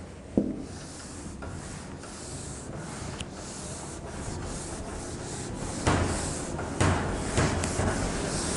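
A handheld eraser rubbing across a whiteboard in repeated back-and-forth strokes, wiping off marker writing, louder over the last few seconds. A sharp knock sounds about half a second in.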